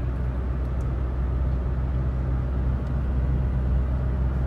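Car driving along, a steady low engine hum with road noise that does not change.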